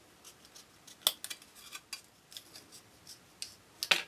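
Small curved-blade scissors snipping around a molded part in a thin plastic sheet: a series of light, crisp cuts, the sharpest about a second in and again just before the end.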